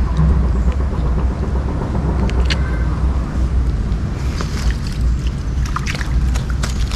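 Steady low rumble of wind buffeting the microphone, with light rustling and clicks as hands handle a mesh keepnet at the water's edge, more of them from about four seconds in.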